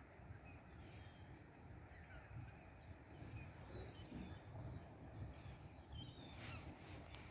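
Faint, scattered chirps and calls of wild birds over a low outdoor rumble, with a few light clicks near the end.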